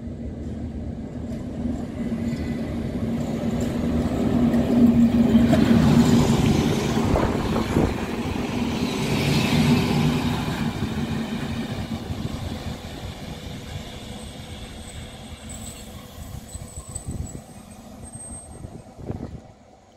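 HŽ class 7122 (Swedish Y1) diesel-hydraulic railcar arriving: its engine drone and the rumble of wheels on rail grow louder as it passes close by about five to ten seconds in, then fade as it rolls away. A faint high squeal comes near the end.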